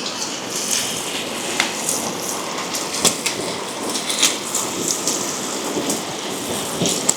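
Bacon-wrapped hot dogs sizzling and crackling on a propane cooktop: a steady frying hiss with many small pops throughout.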